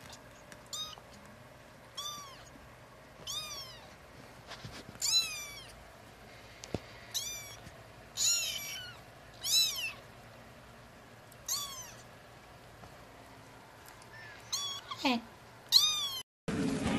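Young kitten mewing: a dozen or so short, high-pitched mews, each rising and falling in pitch, with one longer falling cry near the end. Just before the end it gives way to a steady noisy background.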